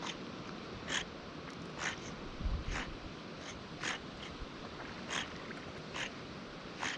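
River otters snorting, a short sharp puff about once a second, the alarm snort otters give at an intruder that comes too close.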